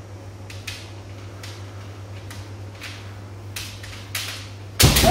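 Kendo sparring: scattered sharp knocks of bamboo shinai and feet on a wooden dojo floor, with a much louder strike or stamp near the end, over a steady low hum.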